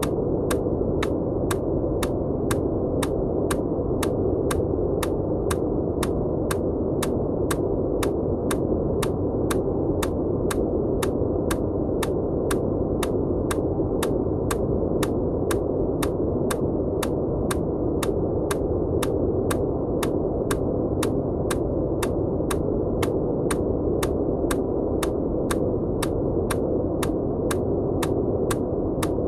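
A steady, deep rushing noise track with a sharp electronic click repeating evenly about twice a second: an EMDR bilateral-stimulation beat laid over the noise.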